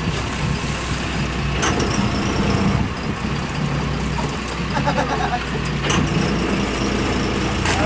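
Sportfishing boat's engine running steadily, with wind and sea noise and a couple of short clicks.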